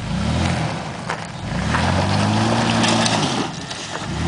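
Toyota Tacoma pickup's engine revving up and down three times, the longest rev in the middle, as it spins its tyres in loose rock and dirt trying to climb out of a hole it has dug itself into.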